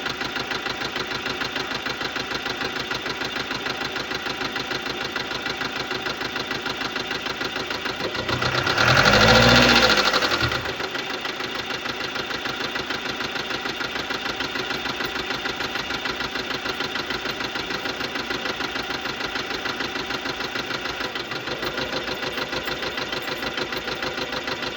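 2015 Subaru Legacy 2.0-litre boxer diesel idling with a fast, even ticking clatter from the valve train, the sound of defective hydraulic lifters. About nine seconds in, the engine is revved briefly, the pitch rising and falling, then drops back to idle with the clatter still going.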